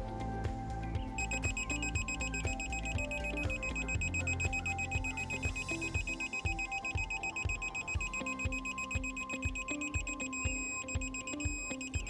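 Digital torque wrench's high-pitched electronic beep starting about a second in and settling into a steady tone, the signal that the flare nut on a 3/8 copper refrigerant line has reached its set 18.4 foot-pounds. Background music with a steady beat plays underneath.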